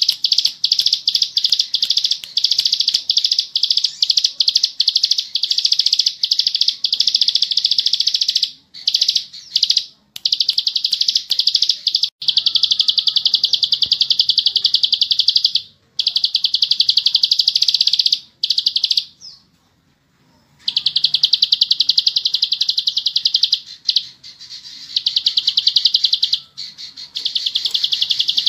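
Plain prinia (ciblek sawah) singing long, very fast clicking trills in dense runs, broken by short gaps and one longer pause a little past the middle.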